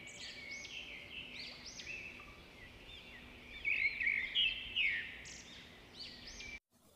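Recorded birdsong, many quick repeated chirps, played through a smartphone's loudspeaker; it cuts off suddenly near the end.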